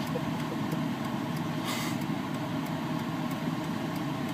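Truck engine running steadily, heard from inside the cab as a low, even rumble.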